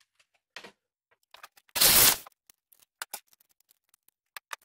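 A corded electric drill with a hole saw runs in one short burst of about half a second, about two seconds in, among scattered light clicks and knocks.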